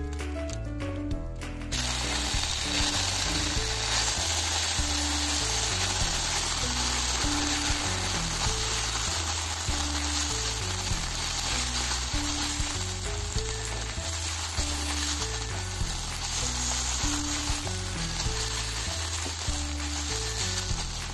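Kimchi and aburaage (fried tofu) sizzling in hot oil in a frying pan while being tossed with chopsticks. The sizzle starts suddenly about two seconds in, when the wet kimchi goes into the hot pan, and stays loud and steady. Background music with a low beat plays underneath.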